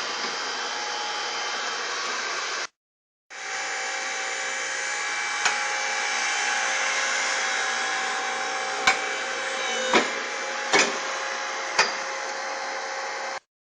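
Steady whir of a running machine or power tool, with five sharp clicks over it. It cuts out briefly about three seconds in, comes back, and stops abruptly just before the end.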